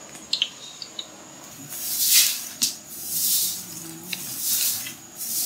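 Balls of batter dropped by hand into hot vegetable oil in a wide pan, each drop setting off a surge of sizzling hiss: four surges about a second apart, starting about two seconds in. A few small clicks before the sizzling starts.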